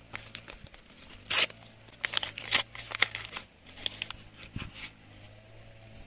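Small paper surprise packet being torn open and unfolded: sharp tearing and crinkling of paper, loudest about a second and a half in and again around two to two and a half seconds in, then lighter rustling.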